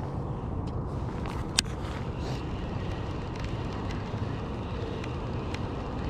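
Steady low wind rumble on the microphone, with a few faint ticks from a baitcasting reel being cranked slowly, and one sharp click about one and a half seconds in.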